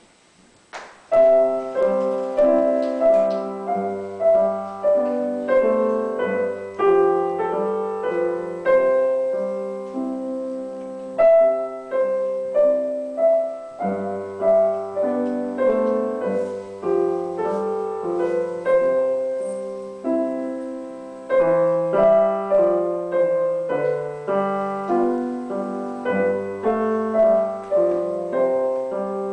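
Grand piano played four hands as a duet: a melody over chords, with long held low bass notes coming in at times. The playing starts about a second in.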